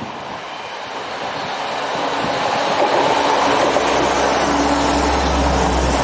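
A two-car diesel multiple unit approaching and passing close beneath, its wheels rumbling on the rails and growing louder over the first few seconds. A low engine drone joins about four seconds in as the train passes underneath.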